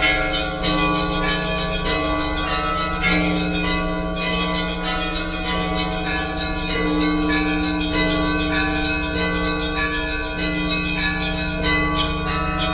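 Orthodox church bells ringing: several bells of different pitches struck rapidly in a continuous peal, with the lower bells re-struck every few seconds and left to ring on.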